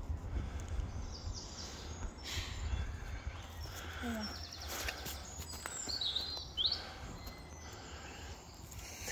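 Woodland ambience: a steady low rumble of wind on the microphone, with a few short high bird chirps about six seconds in and occasional soft footsteps on leaf litter.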